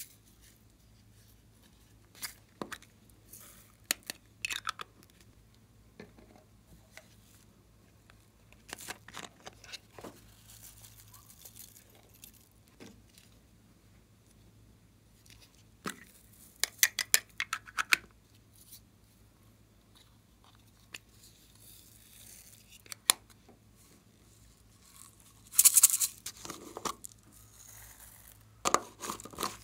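Scattered handling sounds of plastic slime containers and craft materials: short clicks, taps and crinkling rustles. The loudest is a hissing, tearing rustle a few seconds before the end.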